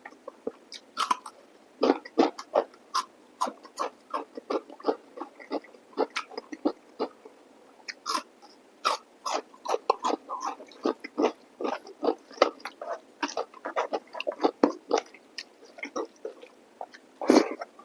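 Close-miked mouth eating chicken curry and rice: wet chewing and lip smacks, several quick, irregular smacks a second, with one louder smack near the end.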